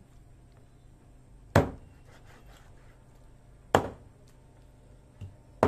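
Cleaver chopping raw duck on a plastic cutting board: three sharp chops about two seconds apart, with a lighter knock just before the last.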